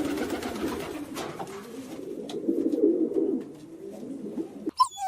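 Low, warbling cooing of a pigeon-type bird. It cuts off suddenly near the end, where a few high, bending whimpering cries start.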